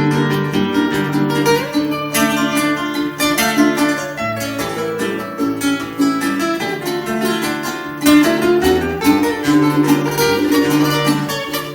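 Acoustic guitar playing an instrumental passage of a folk song between sung verses, strummed in a steady rhythm with picked notes and no singing.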